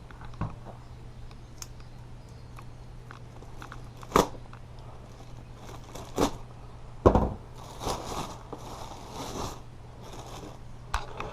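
Packaging being cut and pulled open by hand with a knife: plastic and cardboard crinkling and tearing, with a few sharp clicks and knocks.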